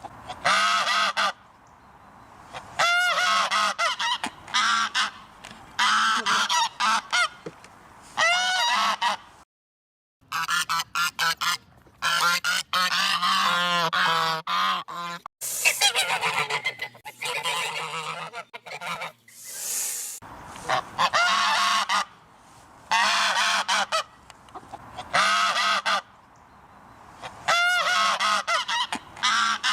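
Geese honking over and over, loud harsh calls in clusters every second or two, broken by a short silent gap near the middle.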